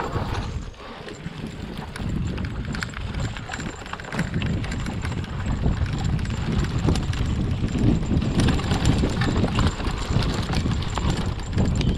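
Hardtail e-mountain bike clattering and rattling as it rolls down a bumpy forest trail, tyres running through dry fallen leaves, with rapid small knocks over a steady low rumble.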